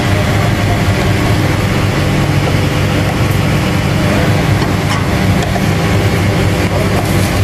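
A steady, loud, low engine drone, with a few faint clicks on top, the clearest about five seconds in.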